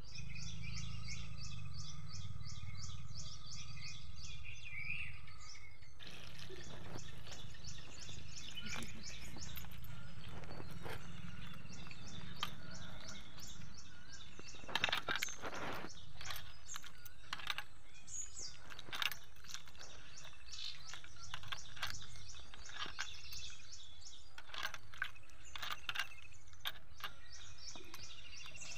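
Birds chirping with a low steady hum, and a rapid even high pulsing for the first several seconds. From about six seconds in there are scattered clicks and wet sloshing as a hand squeezes and mixes fruit pulp in water in a brass bowl.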